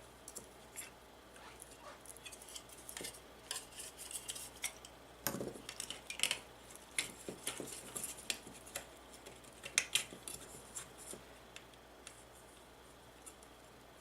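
Scattered light clicks, taps and clatters of small plastic and metal parts being handled and set down, with a louder knock about five seconds in and a quick run of clicks around ten seconds.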